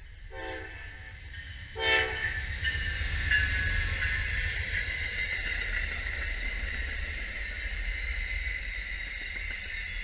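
Amtrak passenger train's locomotive horn sounding two short blasts about a second and a half apart, then the train passing close with a loud, steady rumble of wheels on the rails and a steady high-pitched wheel squeal.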